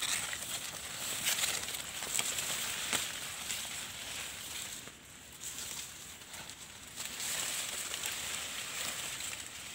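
Footsteps and rustling in dry grass and fallen corn leaves as a person walks up through a cornfield, with scattered crackles, a little louder in the second half.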